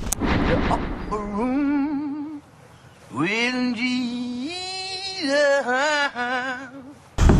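A solo singing voice holding long notes with strong, wide vibrato, the pitch stepping up and down between sustained notes.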